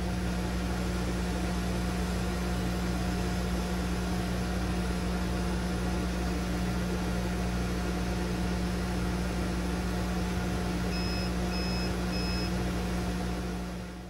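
Steady hum and fan noise of a Thunder Laser Bolt RF CO2 laser engraver, with three short electronic beeps near the end before the sound fades out.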